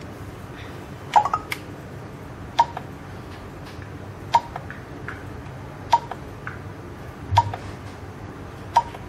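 Keys on an INJES fingerprint access-control terminal's keypad being pressed, six times about a second and a half apart. Each press is a click with a short beep from the terminal acknowledging the key.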